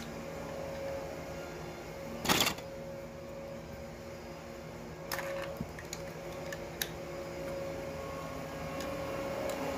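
Plastic Lego Duplo bricks clattering and clicking as they are handled and fitted together, with one loud short rattle about two seconds in and a few lighter clicks later, over a faint steady hum.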